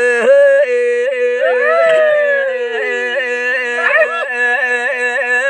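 A man singing a Kaubru traditional song without accompaniment, holding one long note that pulses a few times a second. A second voice slides downward in pitch through the middle.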